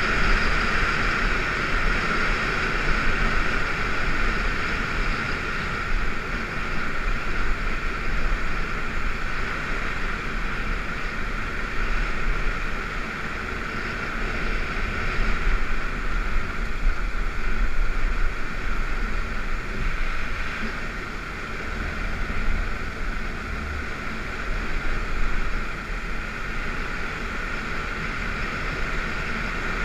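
BMW F650GS adventure motorcycle riding along a gravel road, heard from on the bike: its engine running steadily under a constant rush of wind on the microphone.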